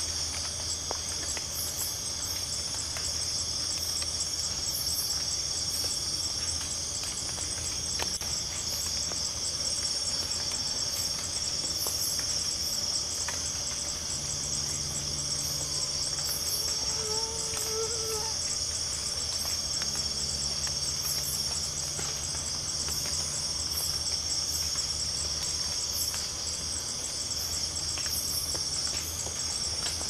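Night chorus of crickets and other insects: a continuous high-pitched trill with shrill pulses repeating roughly once a second.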